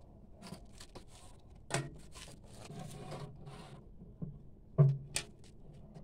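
Plastic PVC pipe fittings and a hose handled and set down on the floor of an empty glass aquarium: rubbing and scraping, with a few sharp knocks, the loudest nearly five seconds in.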